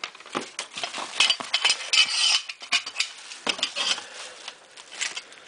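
Rustling packaging with irregular clicks and light clinks as small airsoft rifle parts are taken out of the box and handled. The rustle is busiest in the first half and thins out towards the end.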